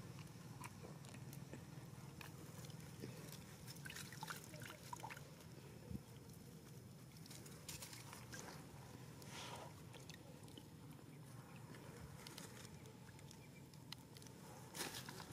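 Faint, scattered slurps and lip-smacks of baby monkeys drinking water from a cupped hand and from a river, with soft sloshing of water, over a low steady background hum.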